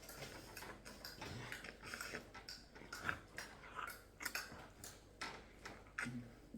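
Faint chewing and eating: irregular small clicks of mouths and food, a few a second.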